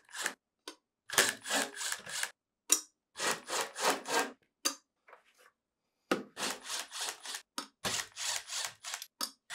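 Screws being backed out of a refrigerator's sheet-metal compressor access cover with a 5/16 inch nut driver: runs of short scraping strokes, with a pause about halfway through.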